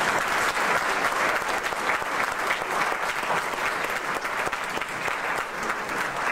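Audience applauding: a sustained round of clapping from a roomful of people, easing off slightly near the end.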